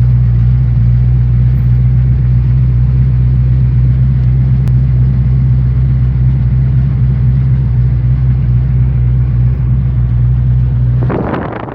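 1967 Ford Mustang's engine running with a steady low drone. Near the end the drone drops away and a rushing noise takes over.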